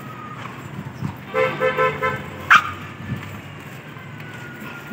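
A vehicle horn on the street honks three short beeps in quick succession about a second in, followed by one brief sharp high-pitched sound, the loudest moment, over a steady low traffic hum.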